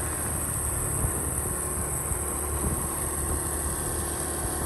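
Steady low rumble of a running vehicle, with a constant high hiss over it.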